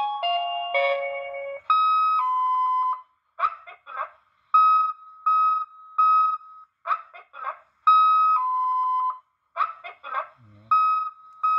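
Electronic warning tones from a car reverse/brake-light sound module played through a small speaker. A short descending chime gives way to a repeating pattern of high-then-low two-tone beeps and short single beeps, alternating with quick chirping bursts.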